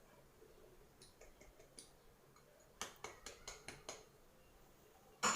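Faint clicks and light taps of a measuring cup or spoon against a mixer jar as flour is tipped in: a few soft ticks, a quick run of about six taps a little past the middle, and a sharper knock near the end.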